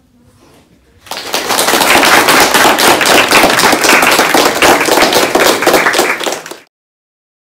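A class of students applauding: dense, fast hand-clapping that starts about a second in, holds loud, and cuts off abruptly near the end.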